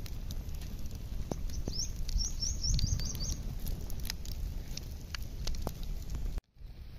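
Wood fire crackling with scattered sharp pops over a steady low rumble. A small bird chirps a quick run of about eight short high notes about two seconds in.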